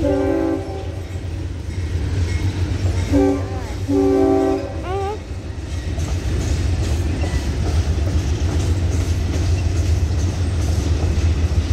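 Loaded coal hopper cars of a Norfolk Southern freight train rolling past with a steady low rumble. A diesel locomotive's multi-note horn sounds a brief blast at the start and a longer one about three seconds in.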